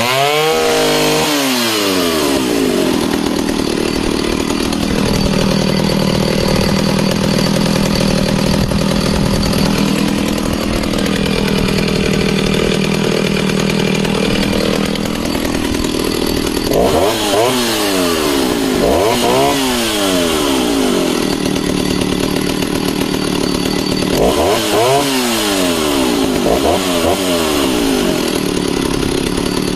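Stihl 08S two-stroke chainsaw running just after a morning start on throttle lock and a bit of choke, holding a steady fast idle. A little past the middle and again near the end it is revved up and back down in two short bursts each time.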